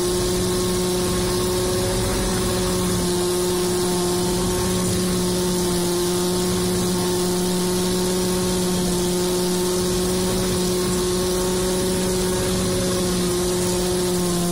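Fortschritt E-281 self-propelled forage harvester running at steady working speed while chopping maize: a continuous mechanical drone with a constant hum and an even rushing noise from the chopped crop blowing out of the spout.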